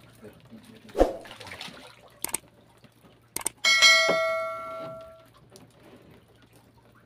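A dull thump about a second in and a couple of light knocks, then a metal object is struck once and rings out, fading over about a second and a half.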